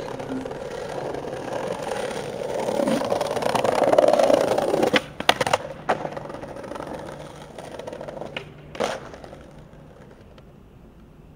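Skateboard wheels rolling over stone paving, the rumble growing louder for about four seconds. About five seconds in come a few sharp clacks of the board, and one more near the nine-second mark, after which the rolling stops.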